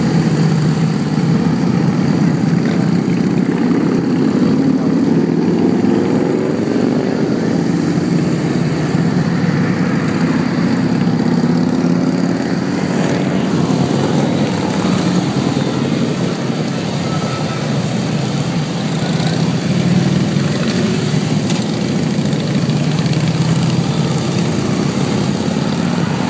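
A procession of motorcycles, largely Harley-Davidson touring bikes, riding past in a steady column: a continuous engine drone whose pitch rises and falls as each bike goes by.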